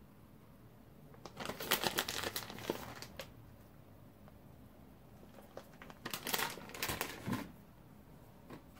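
Plastic bag of shredded cheese crinkling as it is handled, in two spells of rustling, the second about five and a half seconds in.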